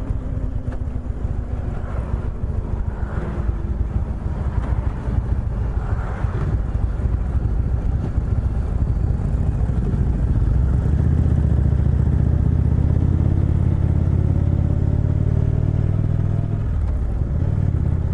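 2018 Indian Chieftain's V-twin engine running under way on the road, with wind noise on the microphone. The engine note grows louder and steadier about halfway through.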